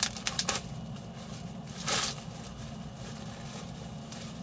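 Bubble wrap and plastic bags rustling and crinkling as a package is unpacked, with a few sharp crackles at the start and a louder rustle about two seconds in.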